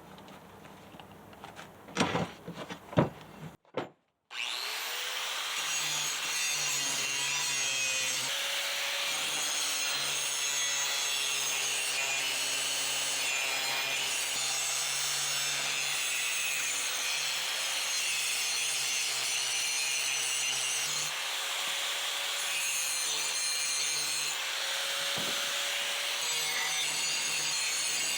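A grinder grinding the edges of a 3/16-inch steel plate smooth: a few clicks of handling, then about four seconds in a steady, grating grinding noise with a faint wavering motor whine that carries on to the end.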